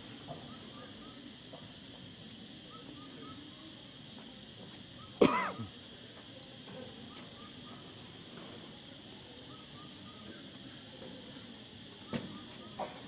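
Insects chirping in steady, rhythmic pulses, faint under an open-air hush. About five seconds in comes one sudden loud sound that falls away within half a second, and near the end two short sharp clicks.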